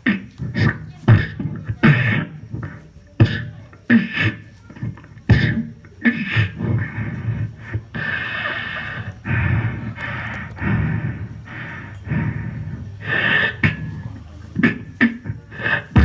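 Human beatboxing: sharp mouth-made kick and snare hits in an uneven pattern, with longer held vocal sounds in the middle of the stretch and again near the end.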